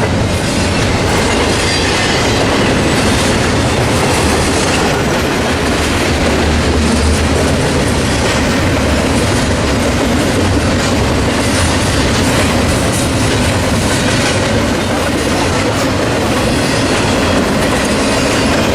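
Train passing close by, its car wheels clattering steadily over the rail joints.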